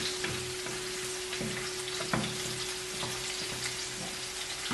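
Sizzling in a stainless steel pan on the stove while a wooden spatula stirs thick teriyaki sauce, with a few sharp clicks of the spatula against the pan.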